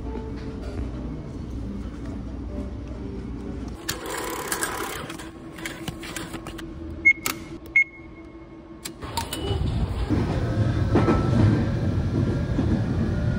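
Two short electronic beeps from a station ticket machine during an IC card charge, then, about nine seconds in, the steady low running noise of a commuter train heard from inside the carriage.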